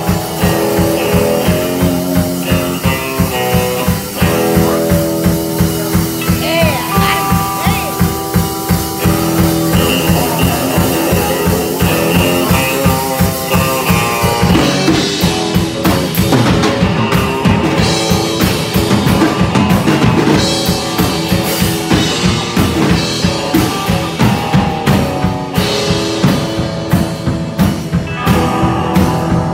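Live rock duo of drum kit and electric guitar playing an instrumental passage over a steady beat. In the first half the guitar plays held lead notes with a bend.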